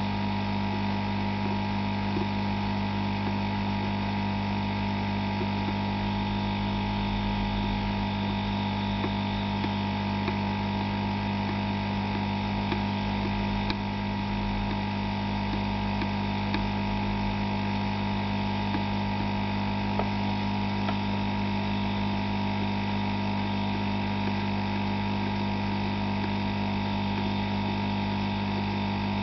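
Hot-air soldering rework station running with a steady electrical hum and the hiss of its air flow, with a few faint ticks.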